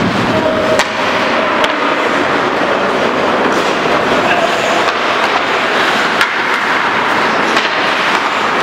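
Ice hockey play in an echoing indoor rink: skate blades scraping the ice and sticks clacking, with a few sharp knocks of stick or puck.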